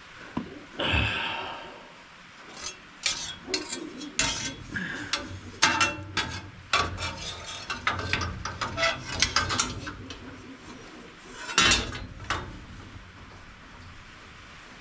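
Metal tools and bolts clinking and clattering as they are handled, an irregular run of sharp clicks and knocks, with one louder knock near the end.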